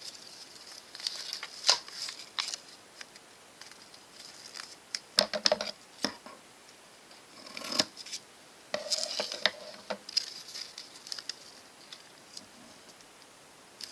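Paper rustling and crinkling in bursts as a paper airplane's tail is handled and folded by hand, with a few sharp clicks, the loudest about five seconds in.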